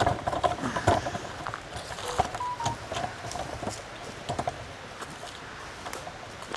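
Footsteps on loose, rough ground: an irregular run of short crunches and scuffs, busiest in the first second or so.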